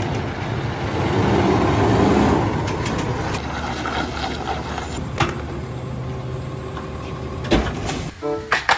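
Rear-loader garbage truck's diesel engine running, louder for the first couple of seconds as the truck pulls up, then idling steadily. Two sharp knocks come later on.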